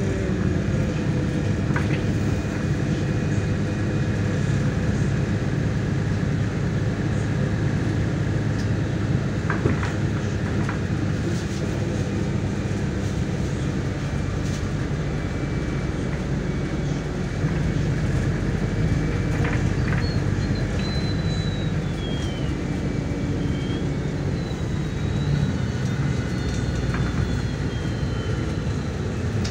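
MAZ 103 city bus heard from inside while driving: a steady engine and road rumble with occasional short rattles. A faint high whine comes in about two-thirds through.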